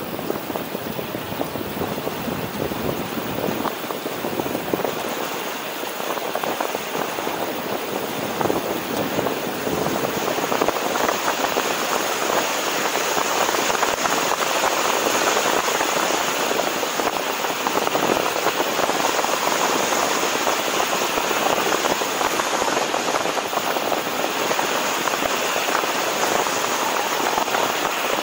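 Steady wind rush over the microphone and tyre hiss on asphalt from a moving dual-motor electric scooter, with no clear motor whine; the rush grows louder about ten seconds in and stays up.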